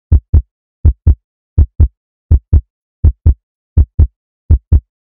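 Heartbeat sound effect: a steady lub-dub pulse of paired deep thumps, about 80 beats a minute, with dead silence between beats.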